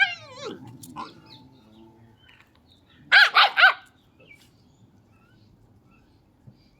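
Street dogs: a sharp yelp that falls in pitch at the start, a few smaller yelps, then a burst of three quick high barks about three seconds in.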